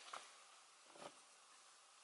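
Near silence: room tone, with two faint soft handling sounds from a hand working a paddle shifter behind a steering wheel, one at the start and one about a second in.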